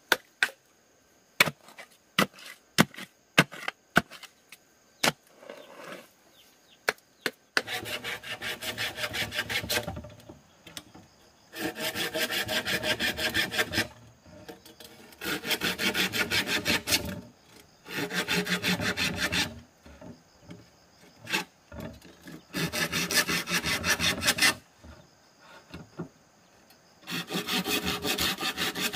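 A dozen or so sharp wooden knocks, then repeated bursts of a saw cutting bamboo. Each burst of rapid rasping strokes lasts two to three seconds, with short pauses between them.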